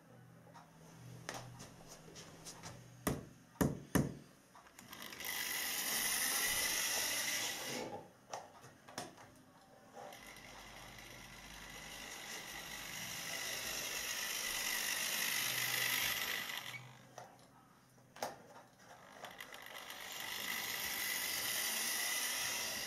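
Model Cardiff trolley bus running on model railway track: its small electric motor and wheels whir steadily, swelling and fading three times as it passes near and runs away. A scattering of sharp clicks comes in the first four seconds.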